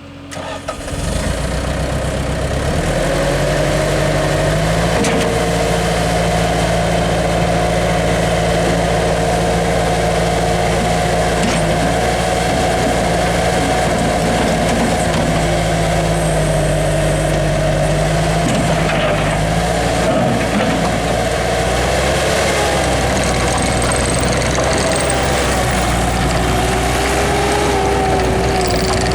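Bobcat T200 tracked skid steer's diesel engine cranking and starting about a second in, then running steadily with a few slight shifts in pitch.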